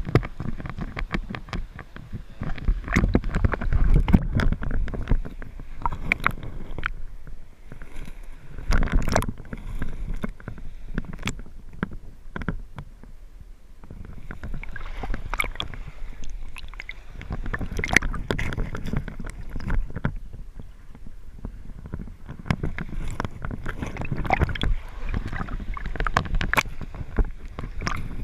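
Stream water sloshing and gurgling around a camera dipped under the surface, with many irregular knocks and splashes and a rumble that swells and fades.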